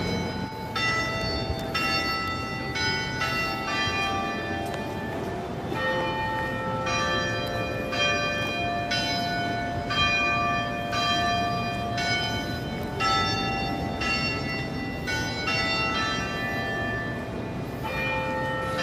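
Church bells pealing: a run of strikes at several different pitches, about one or two a second, each note ringing on under the next.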